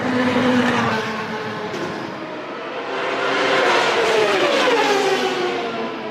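1993 Formula One race cars' engines at high revs as they pass on a street circuit: one pass just after the start, then a louder one in the middle with the pitch falling as it goes by, fading near the end.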